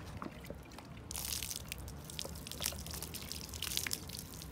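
Water pouring and splashing, starting about a second in, with many small drips and splashes: washing freshly caught mullet.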